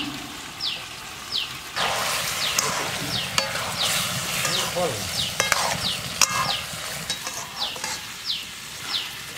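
Raw chicken pieces frying in hot oil and curry paste in a metal wok: a loud sizzle sets in about two seconds in as the meat goes in, with a metal spatula stirring and clicking against the pan. A short high falling chirp repeats about every two-thirds of a second throughout.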